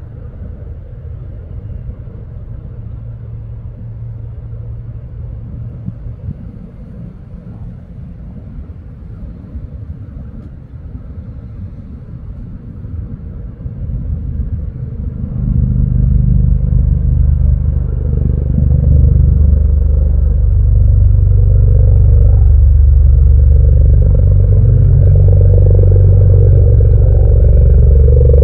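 V-22 Osprey tiltrotor flying in with its rotors tilted up, heard as a deep, low rotor rumble. About halfway through it gets much louder as the aircraft comes closer, then stays loud.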